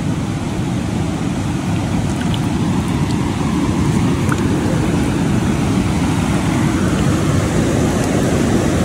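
Steady rushing of stream water close to the microphone, heavy and deep in tone.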